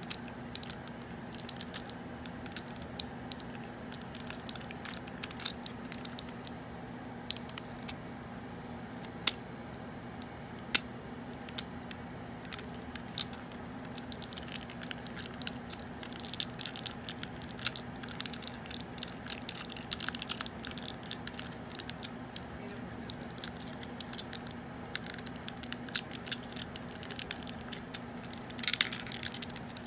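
Handling noise from a vintage G1 Transformers Hot Rod toy's plastic parts being moved in the hands: scattered sharp clicks and light scraping over a steady low hum. The clicking and scraping thicken midway, and there is a louder rustle near the end.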